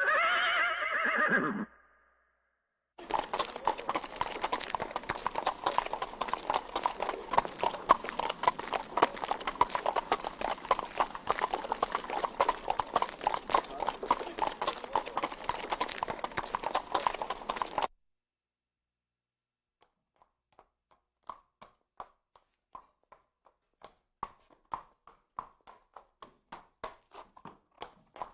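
A horse whinnies once, its call falling in pitch. Then shod hooves clip-clop on concrete in a dense, steady run for about fifteen seconds. After a brief pause, single hoofbeats come closer and grow louder as a horse walks by.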